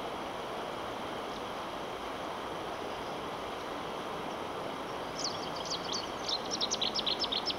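River water running steadily. From about five seconds in, a small songbird sings a rapid series of high chirps.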